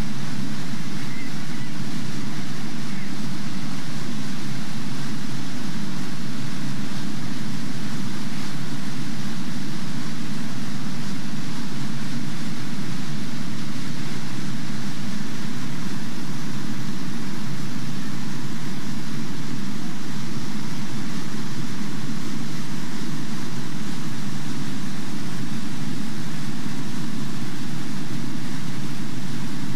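Whitewater rapids rushing, a loud, steady, low rush of water that does not change.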